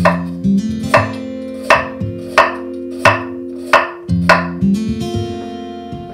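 Kitchen knife slicing through carrot onto a wooden cutting board: sharp, even cuts about every 0.7 seconds. Plucked-guitar background music plays underneath.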